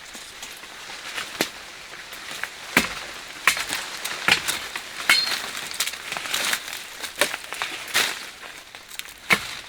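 Dry vegetation rustling and snapping: irregular sharp cracks, one or two a second, over a steady rustle.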